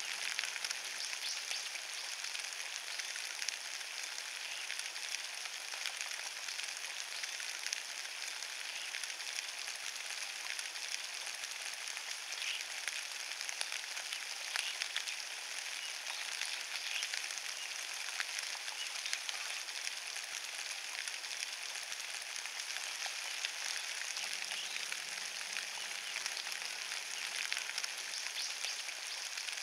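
Steady rain falling on a forest floor of fallen leaves: a dense, even patter of many small drop ticks.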